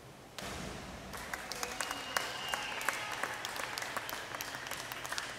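Two divers entering the pool together with a sudden splash about half a second in, followed by spectators applauding and cheering in a reverberant pool hall.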